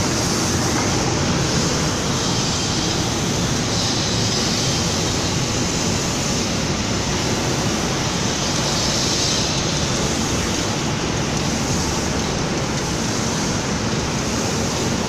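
Steady machinery noise from an automatic cabinet-door spray-painting line running, a constant even rush with no distinct rhythm or clanks.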